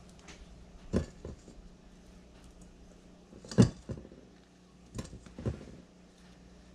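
Rubber spatula scraping cream cheese off a stand mixer's flat beater over a stainless steel bowl, with about six sharp knocks of utensils against the bowl, the loudest about three and a half seconds in.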